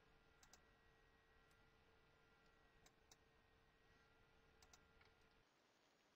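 Near silence: faint room hum with a few soft computer mouse clicks, about half a second in, around three seconds, and near five seconds.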